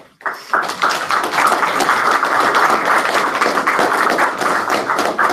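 Audience applauding loudly, breaking out just after the start and holding steady.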